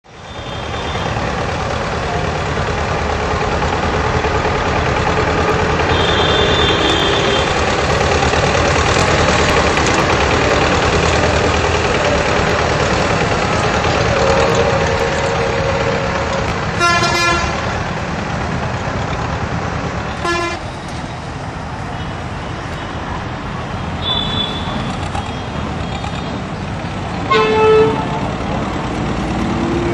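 Farm tractor's engine running steadily as it drives through tall weeds. A few short pitched sounds cut in about halfway through, again a few seconds later and near the end, the last the loudest.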